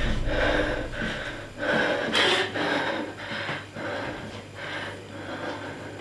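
A woman breathing fast and hard, short noisy breaths about two a second, growing fainter toward the end.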